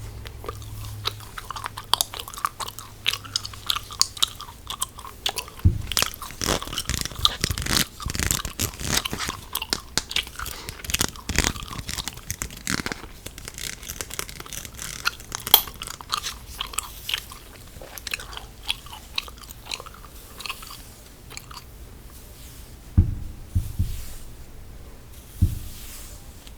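Close-miked gum chewing: a dense run of sharp wet clicks and smacks, thickest through the middle, with a couple of low thumps near the end.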